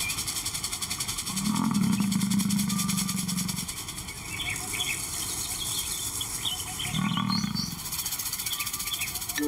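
Male lion giving two low, drawn-out roars: the first about two seconds long, starting about a second and a half in, and a shorter one about seven seconds in. A steady high-pitched background and a few bird chirps run underneath.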